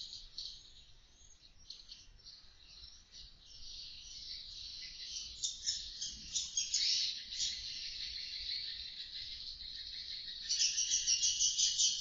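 Many roosting edible-nest swiftlets twittering together in a rapid, high-pitched chatter. It is quieter at first, builds from about four seconds in, and swells louder near the end.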